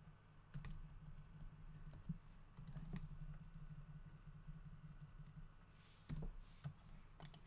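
Computer keyboard being typed on: faint, scattered single keystrokes, a few seconds apart at first, then a quicker cluster of taps near the end.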